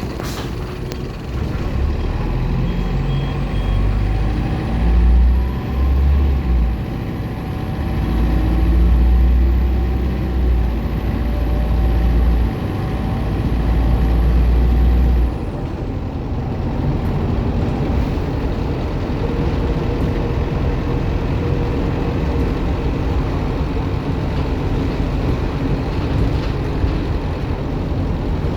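Optare Solo M950 bus's diesel engine pulling under load with a high-pitched turbo whine that rises over the first few seconds and holds; about fifteen seconds in the engine eases off and the whine falls away, leaving a lighter steady running sound.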